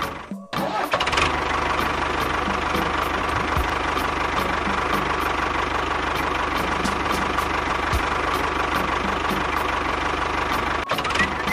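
Steady engine-like running with a regular knocking beat of about three a second, typical of a small tractor engine at idle; it drops out briefly about half a second in.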